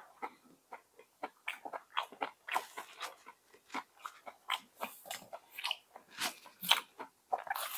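A person chewing a mouthful of food with perilla leaves, with many short, irregular wet smacks and light crunches.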